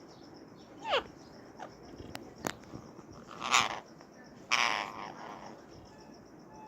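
Rose-ringed (Indian ring-necked) parakeet calling: a short falling whistle about a second in, two sharp clicks, then two loud, harsh screeches about a second apart past the middle, which the uploader presents as a mating call.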